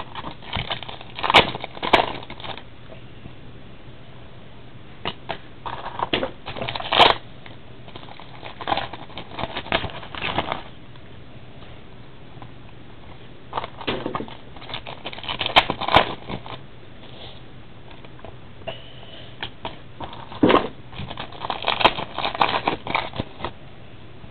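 Trading card packs being opened and handled: crinkling, crackling pack wrappers and cards rustling and tapping, in clusters of a few seconds with short pauses between.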